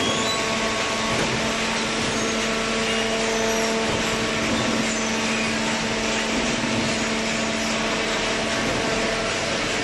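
Hydraulic baling press running: a steady electric-motor and hydraulic-pump hum over dense machine noise, holding an even level.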